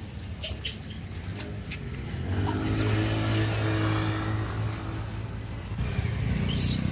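A motorbike engine running close by, louder from about two seconds in and easing off near the end, with a few light clicks over it.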